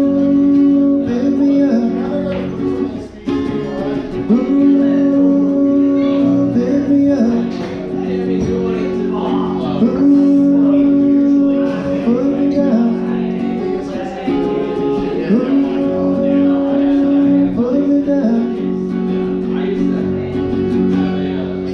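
Acoustic guitar strummed in a steady rhythm, with chords changing every couple of seconds: an instrumental outro after the song's last chorus.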